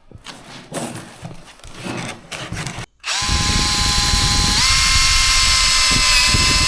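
Some scattered handling noise, then after a brief break a power drill starts up and runs steadily, its whine stepping up in pitch partway through as it speeds up.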